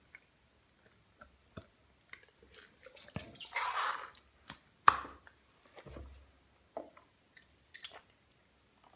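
Wet squelching and dripping of a slime-soaked grey sock on a foot being worked in a bucket of green slime, with scattered small wet clicks. A louder run of squishing comes about three to four seconds in, followed by one sharp wet smack about a second later.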